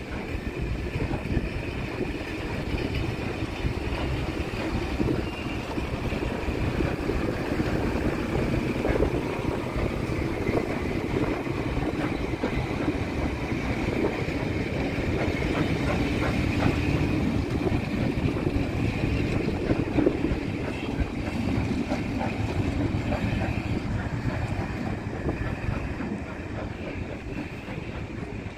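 Passenger coaches of a steam-hauled train rolling steadily past at close range: a continuous rumble of wheels on rail with scattered clicks over rail joints, easing a little near the end.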